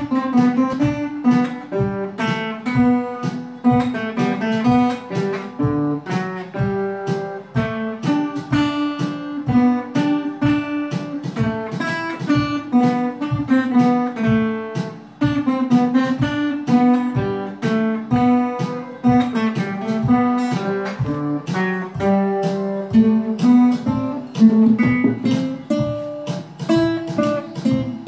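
Acoustic guitars, a nylon-string classical guitar and a steel-string acoustic, played together: picked notes in a steady rhythm.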